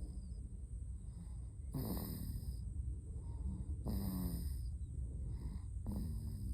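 Loud snoring: three snores about two seconds apart, each dropping in pitch, over a steady low background hum.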